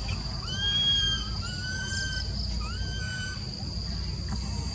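Baby long-tailed macaque giving three or four drawn-out, high whistling cries, each rising at the start and then held, the cry of an infant calling for its mother. A steady high-pitched drone runs underneath.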